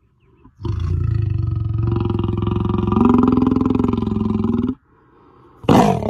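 A lion roaring: one long, drawn-out roar of about four seconds that rises a little in pitch partway through, then stops. After a brief pause a second roar starts abruptly near the end.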